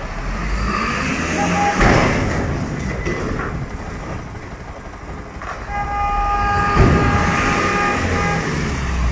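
A vehicle horn honks briefly about a second and a half in, then sounds again in one long steady blast of nearly three seconds. Under it runs the low rumble of street traffic and a running engine, with two sharp thumps.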